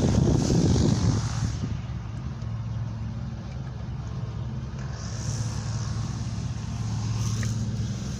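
Car engine idling steadily with a low, even hum. A louder rush of noise covers the first second or so.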